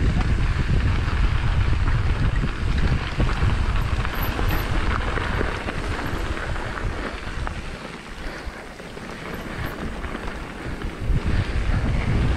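Wind buffeting the microphone of a camera carried on a moving mountain bike: a rough low rumble over a steady hiss. The rumble eases off for a few seconds about two-thirds of the way through, then returns.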